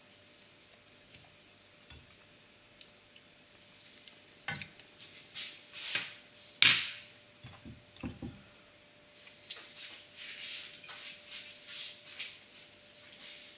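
Occasional clicks and knocks of a slotted spatula against a non-stick frying pan, the sharpest about halfway through, over a faint steady hum.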